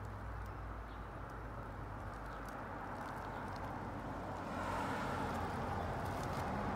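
Faint crunching of footsteps on gravel over a steady outdoor background rumble. The crunching and hiss grow louder about two-thirds of the way through.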